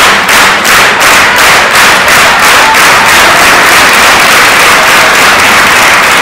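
Theatre audience applauding loudly. For the first few seconds the clapping falls into a shared rhythm of about four claps a second, then it evens out into general applause.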